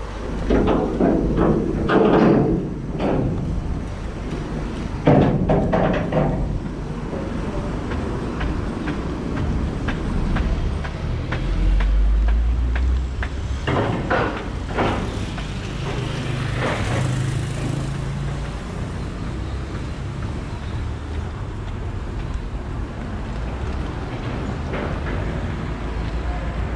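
Street traffic: several vehicles pass one after another over a steady background of road noise, with a deep rumble a little under halfway through.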